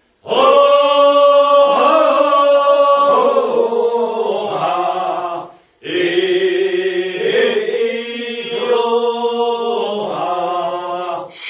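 A group of voices singing the refrain of a Korean rice-paddy weeding work song, the response to the lead singer's verse. It comes in two long drawn-out phrases with a short breath break about halfway through.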